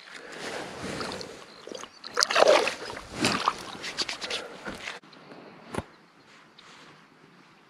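Water splashing and sloshing as a small bass is released by hand into the shallows of a pond, loudest about two to three seconds in and dying away after about five seconds. A single sharp tap near the end.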